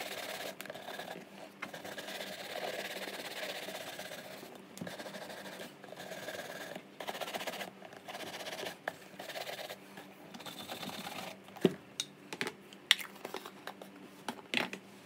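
Bristle shoe brush scrubbing back and forth over oiled leather White's boots in quick, uneven strokes, working the oil into the leather. Near the end the brushing stops and a few sharp knocks and taps follow as the boots and brush are set down on the desk.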